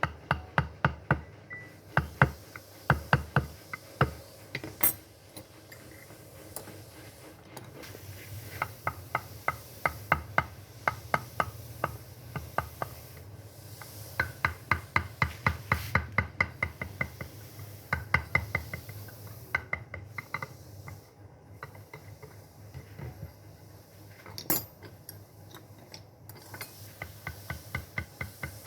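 A mallet striking a carving chisel into wood: sharp taps in runs of about three or four a second, with short pauses between runs.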